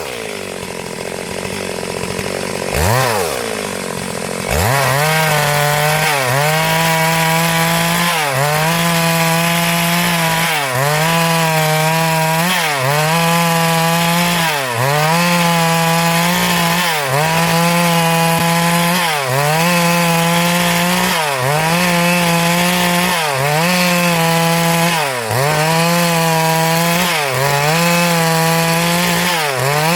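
Stihl MS382 two-stroke chainsaw cutting wood. It runs lower for the first few seconds and revs up about three to four seconds in. After that it runs at high revs, with the engine note sagging and recovering about every two seconds as the chain bites into the log.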